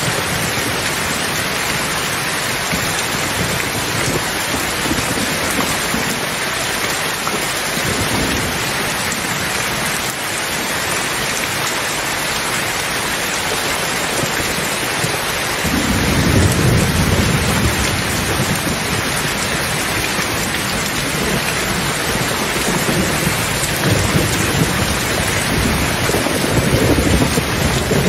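Steady rain hissing throughout. About halfway through a low rumble of thunder rolls in and lasts several seconds, with more rumbles near the end.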